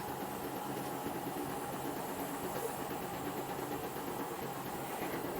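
Air-conditioner compressor, rigged as an air compressor, running steadily with an even hum.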